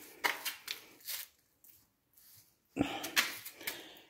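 Footsteps scuffing and scraping on a gritty concrete floor, a few short scrapes in the first second, then a brief breathy vocal sound about three seconds in.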